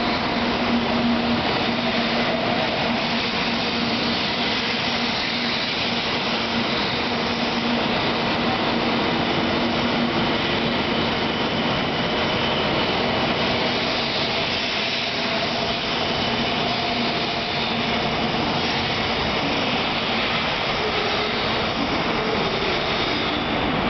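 700 series Shinkansen train pulling out of the station and running past, a steady rush of wheel, motor and air noise with a faint whine over it.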